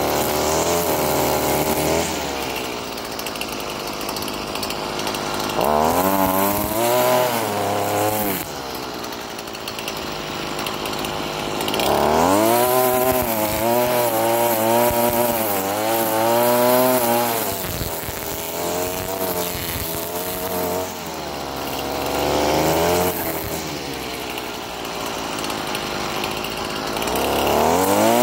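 Stihl FS38 string trimmer's small 27.2 cc two-stroke engine running under use, revved up in several long bursts, each lasting a second or up to about five seconds, and dropping back toward idle between them.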